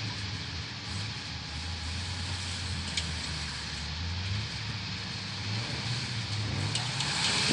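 Jeep engine running under load as the mud-covered Jeep churns through a mud hole, climbing in pitch near the end as it revs up. A steady hiss runs under it.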